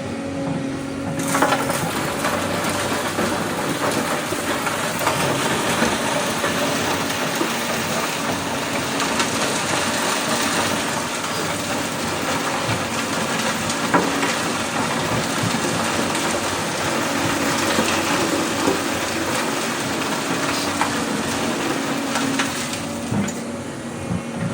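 Loose gravel and stones crunching and rattling as an excavator bucket digs and loads them, with sharper knocks now and then. A steady machine hum runs faintly underneath.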